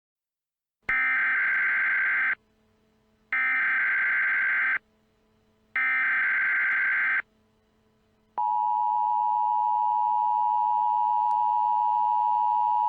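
Emergency Alert System tones: three bursts of the SAME digital header, each about a second and a half long with a pause between, which carry the alert's coded data to receivers. About eight seconds in, the steady two-tone EAS attention signal starts.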